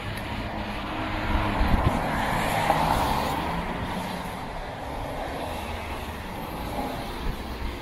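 A car passing close by on a wet road: tyre hiss swelling to a peak about three seconds in and then fading away.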